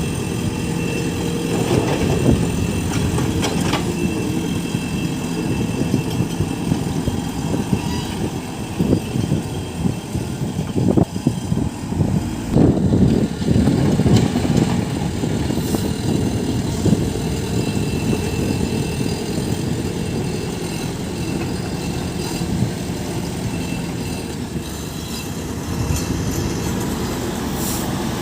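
JCB backhoe loader's diesel engine running steadily under work, with gravel and stones crunching and the bucket clanking, busiest and loudest about halfway through.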